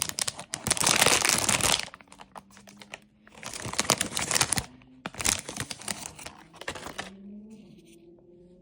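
Plastic bag around a blind-box figure crinkling as it is handled and opened, in three loud spells with short pauses between them, going quiet near the end.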